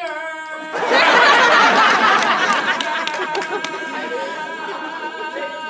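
One voice holding a long, steady call while an audience breaks into loud cheering and chatter about a second in.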